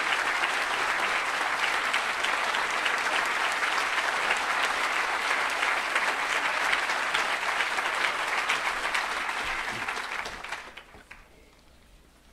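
Audience applauding, a dense patter of clapping that dies away about ten and a half seconds in, leaving quiet.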